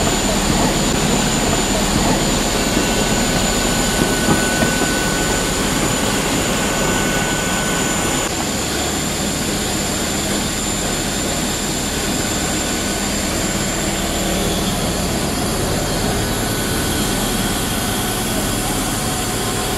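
Jet aircraft noise at the airport: a steady rushing roar with a constant high-pitched whine over it.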